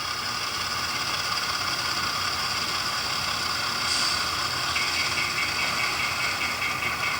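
Model diesel locomotive moving slowly on the layout track, its motor and gears giving a steady whine of several tones. About five seconds in, a second, higher tone joins.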